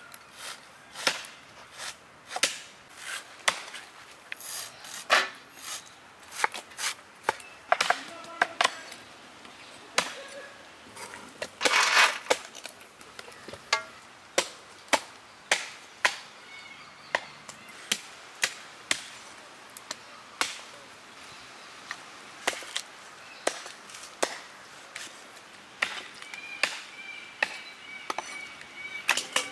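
Cleavers chopping whole country chickens into pieces on wooden log chopping blocks: a string of sharp, irregular knocks, one or two a second.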